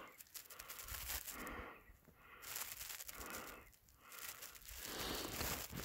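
A hiker's heavy breathing, three long breaths with short pauses between, winded from climbing through deep snow.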